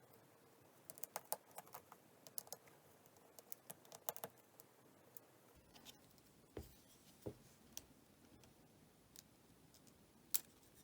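Faint, irregular clicks and taps of small tools and parts being handled while reassembling an iPhone 8, with a quick cluster of clicks in the first few seconds, a couple of duller taps midway and one sharper click near the end.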